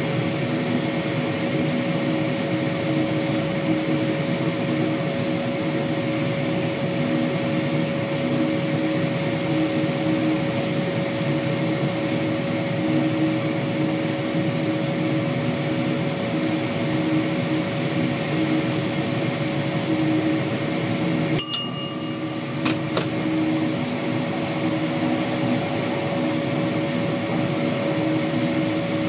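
Steady running drone in the driver's cab of an NMBS AM62 'klassieker' electric multiple unit moving along the line, a constant hum with steady tones over the rumble of wheels on rail. About three-quarters of the way through a sharp click comes, the noise dips briefly, and a second click follows a second later.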